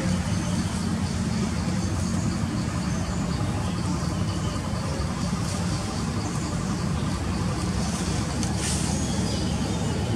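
Steady low rumble like a running engine, holding an even level with no break, with a few faint high clicks in the second half.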